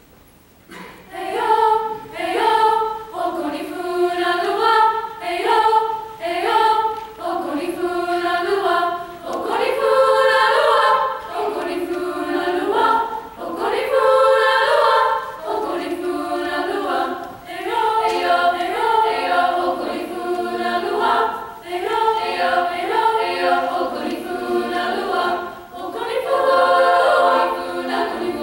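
High school girls' choir singing a cappella in Yoruba, starting about a second in, in short rhythmic phrases.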